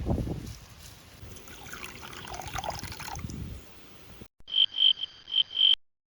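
Outdoor ambience with low wind-like rumble and rustling, then, after a sudden cut, about five short high-pitched chirps in quick succession from a small animal. The chirps stop abruptly.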